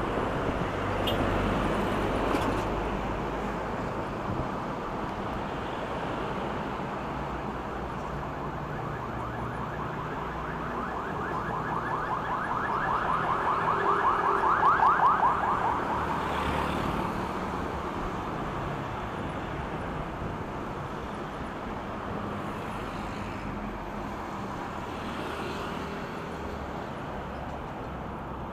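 Steady road and traffic noise heard from a moving e-bike, with a motorcycle passing close alongside about halfway through. Its rapid pulsing sound swells, peaks and fades over several seconds.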